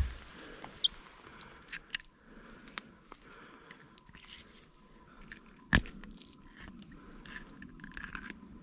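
Small clicks, crunches and scrapes of needle-nose pliers working a deeply swallowed hook out of a sauger's mouth. One sharp knock a little past halfway is the loudest sound.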